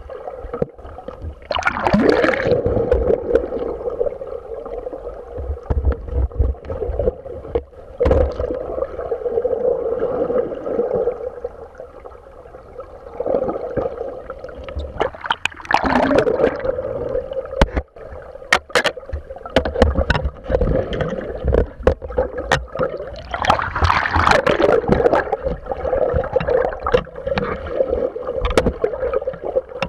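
Muffled water sloshing and gurgling around a submerged camera, with scattered sharp clicks and knocks. Louder surges of rushing water come about two seconds in, about halfway through, and again about two-thirds of the way through.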